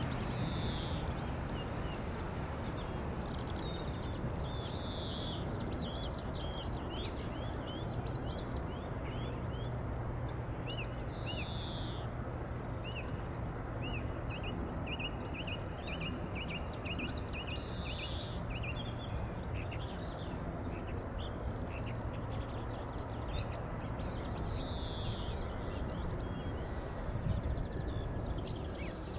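Small birds chirping and singing, with short quick notes and a phrase that comes back every few seconds, over a steady low rumble.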